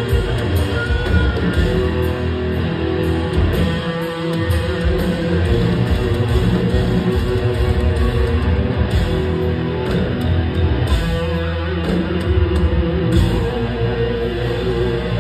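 Heavy metal band playing live and loud: distorted electric guitars over bass and drums.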